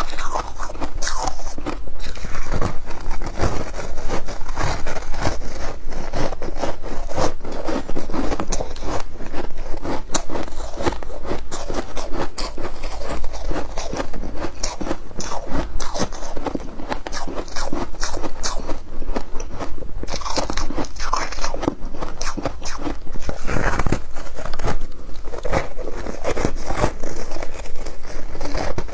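Ice being bitten and chewed, a steady run of dense, crisp crunching.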